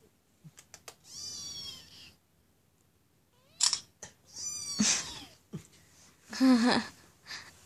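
Kitten meowing: one long high-pitched meow about a second in, another falling meow about halfway through, and a lower, shorter call near the end, with a few light taps and rustles between them.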